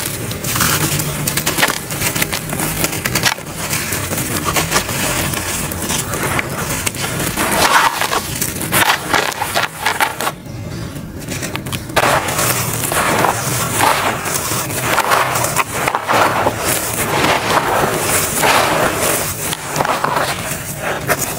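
Gloved hands squeezing and crumbling soft charcoal lumps, some of them wet, into grit: a continuous gritty crunching and crackling. About ten seconds in there is a brief lull in the crackle before it picks up again.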